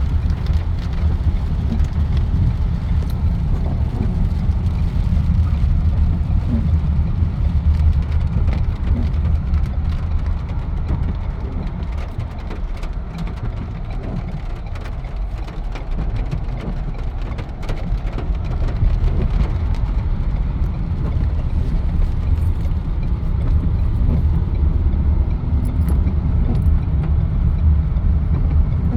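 Car cabin noise while driving: a steady low rumble of engine and tyres, with scattered fine ticks of rain on the car body. It eases a little about halfway through, then comes back up.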